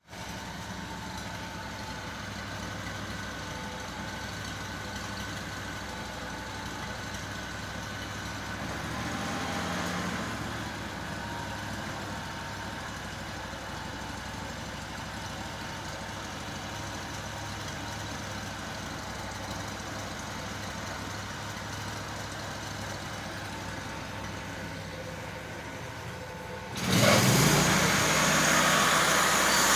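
Small gasoline engine of a MechMaxx SM36 portable band sawmill idling steadily, then near the end revved up sharply and much louder, with a strong high hiss over the engine note.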